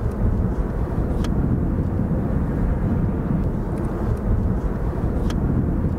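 Steady low outdoor rumble with two sharp clicks from a DSLR camera shutter, one about a second in and one near the end.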